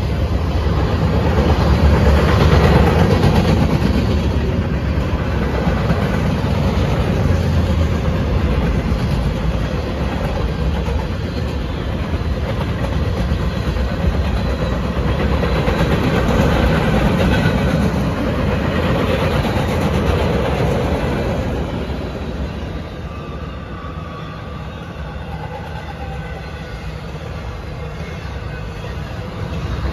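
Freight train passing: boxcars and tank cars rolling by, a steady rumble of wheels on the rails. It grows somewhat quieter a little past twenty seconds in, then builds again near the end.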